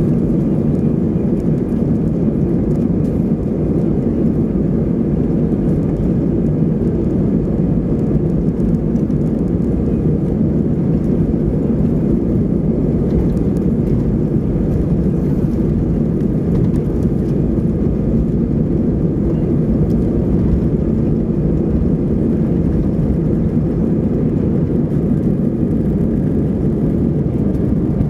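Airbus A320 cabin during the takeoff roll into liftoff: the engines at takeoff thrust give a loud, steady low rumble with faint whining tones above it, unchanging throughout.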